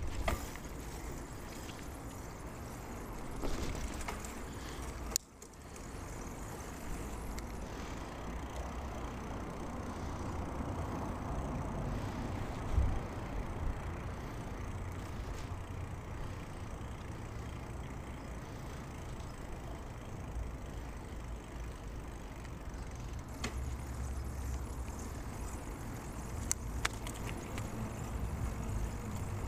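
Steady wind and road rumble on a clip-on lavalier mic while riding a bicycle. A knock comes in the middle and a few sharp clicks near the end.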